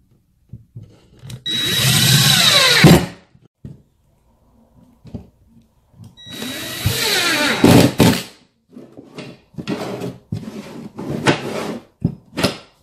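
Ridgid cordless impact driver with a Phillips tip running twice, for about a second and a half and then about two seconds, driving screws through metal brackets into the ends of wooden braces. Its pitch falls as each run ends. A string of short knocks and clatter follows as the bracketed braces are handled on the particleboard.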